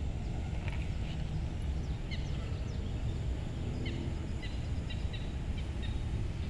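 Small birds chirping: short, high, falling chirps, some in quick runs, heard over a steady low outdoor rumble.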